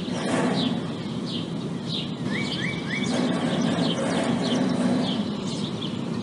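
Songbirds chirping in quick, repeated short notes over a steady low machine hum.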